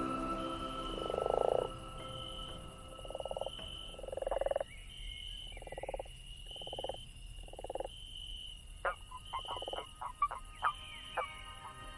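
Frogs croaking: a string of low, pulsing croaks, each about half a second long, repeated every second or so. A quick run of higher, shorter clicks comes in about nine to eleven seconds in, over a faint high, steady trill.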